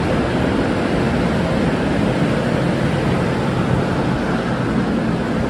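Steady low roar of machinery at an airliner's gate, heard from the jet bridge at the aircraft door.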